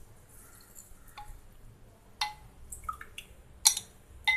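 A few sharp clicks and light clinks as a metal ladle knocks against a glass bowl while scooping the milk mixture, with faint liquid drips.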